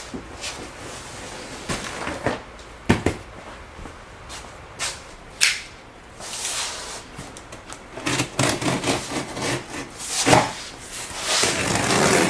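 Scattered knocks and clunks with bursts of rustling, the sound of a boxed plasma cutter and its cardboard packaging being handled and opened.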